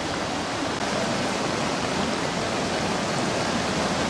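Swollen stream in flood rushing and churning over a low concrete weir: a steady, unbroken roar of white water.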